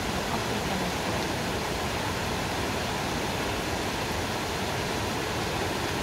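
Steady rush of a small creek cascading over mossy boulders.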